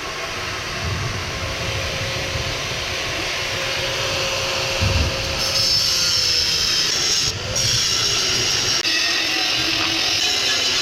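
Power cut-off grinder cutting through the welds on a steel air-compressor tank: a steady, loud metal-cutting screech with a motor whine that sags and wavers as the wheel bites, and a few brief breaks in the cut in the second half.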